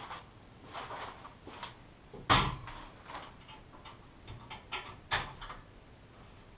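Timber dome frame panels being handled and fitted together: a series of wooden knocks and clatters, the loudest a little over two seconds in and another strong one about five seconds in, with lighter taps between.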